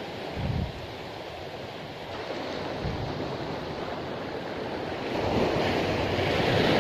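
Sea surf washing against the shore, with wind buffeting the microphone in low gusts.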